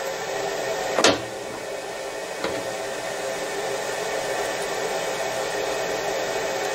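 Steady whirring motor hum in a machine workshop, with a sharp knock about a second in and a lighter tick about a second and a half later.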